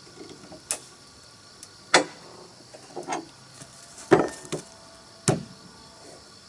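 Several sharp wooden knocks at uneven intervals, wood being struck during timber wall building, over a faint steady hiss.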